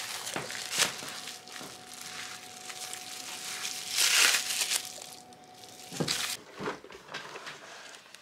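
Plastic cling wrap crinkling as wrapped packages of gingerbread dough are handled and stacked, loudest about four seconds in, with a few knocks against the counter. A faint steady tone sits underneath until about six seconds in.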